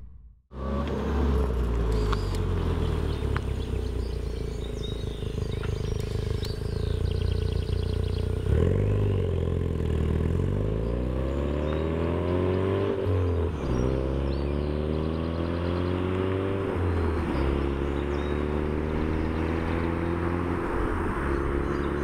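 Ford Focus RS's turbocharged 2.3-litre four-cylinder through a COBB turboback exhaust with its valve closed, running steadily, then accelerating away under normal throttle from about eight seconds in. The pitch climbs and drops back at each upshift, roughly every three to four seconds.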